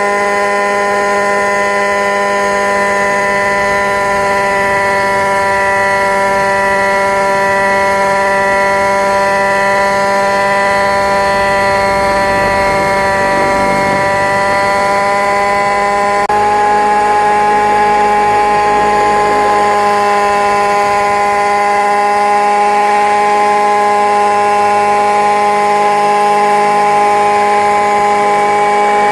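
Small engine of a camera-carrying model helicopter running at steady speed, a loud, even whining drone; its pitch steps up slightly about sixteen seconds in.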